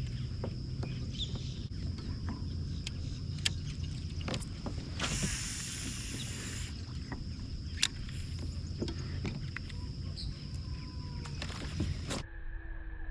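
Low, steady rumble of wind and water around a fishing kayak, with scattered sharp clicks and knocks of gear, and a brief hiss about five seconds in.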